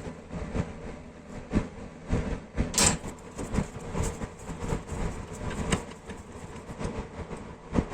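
Irregular metallic clicks and knocks, about one or two a second, over a steady hum, typical of hand tools and parts of an old belt sander being handled during work on it; one sharper clank about three seconds in.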